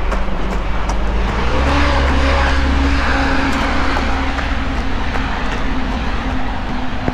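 A motor vehicle passing by, its engine hum and tyre noise swelling about one and a half seconds in and slowly fading, over the regular footfalls of a runner.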